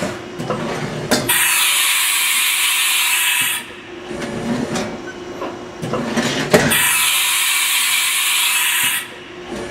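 Haas VF-4's 20-station carousel automatic tool changer running through two tool changes. Each starts with a sharp knock, followed by a loud hiss of compressed air lasting about two seconds, with lower mechanical noise between the two cycles.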